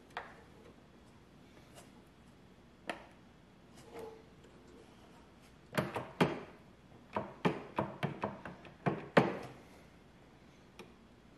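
Sharp clicks and knocks from inside a 1914 National Cash Register as a hand works at its seized drawer-release and bell mechanism: a few single clicks, then a quick run of about a dozen between about six and nine seconds in.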